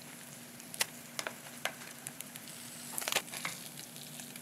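Small fish (smelt) frying in hot oil in a frying pan, a steady low sizzle. Scattered sharp clicks come through it, several close together about three seconds in, as metal tongs lift the fried fish out of the pan.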